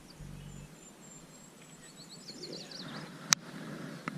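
Birds singing faintly, a string of high chirps and trills, over quiet outdoor ambience. One sharp click comes about three seconds in.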